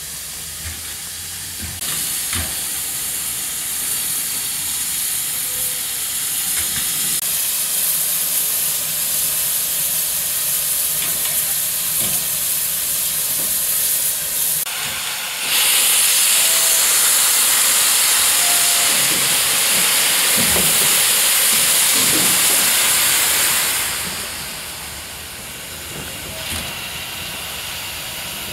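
Steam hissing from J class steam locomotive J515, blowing out low at the front around the cylinders. The hiss is steady, then jumps much louder for about eight seconds in the middle before dropping back.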